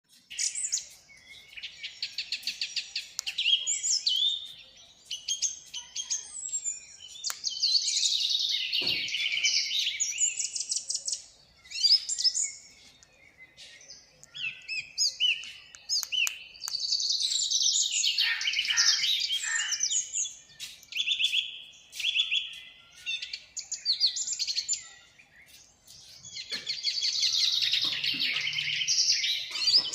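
Birds chirping and chattering in dense bursts of rapid, high calls lasting a few seconds each, with short lulls between them.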